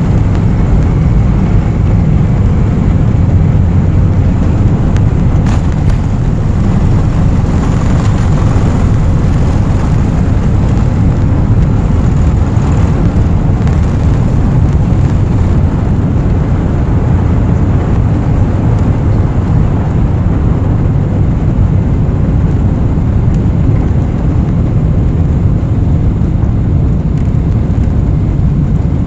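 Boeing 747-400's four jet engines at takeoff thrust, heard from inside the cabin: a loud, steady low rumble as the airliner accelerates down the runway and lifts off.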